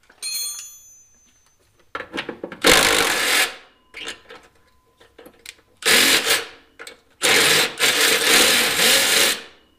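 A short metallic ring at the start, then a cordless impact wrench hammering on a nut in three bursts, the last and longest about seven seconds in.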